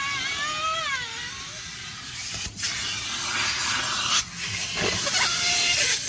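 A woman's high, wavering cry for about the first second and a half, then the rushing suction of a car-wash vacuum nozzle, growing louder toward the end.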